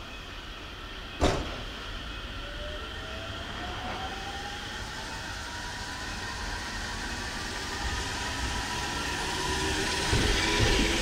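JR 313 series electric train pulling away, its traction motors giving a whine that rises steadily in pitch as it accelerates. There is a sharp clack about a second in, and the train grows louder near the end as low thuds of wheels over rail joints begin.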